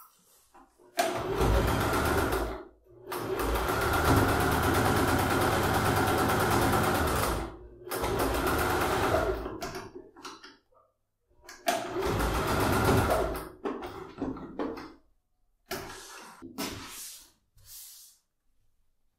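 Electric domestic sewing machine stitching in four runs of one to four seconds, stopping and starting between them, as it sews a securing stitch to hold a fabric bag strap in place. Near the end come a few short, soft handling sounds.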